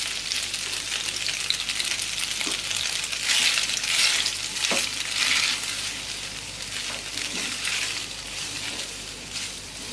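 Boiled macaroni with scrambled egg and onion sizzling in oil in a frying pan while being stirred and tossed with a silicone spatula. The sizzle grows louder for a couple of seconds in the middle as the pasta is turned over.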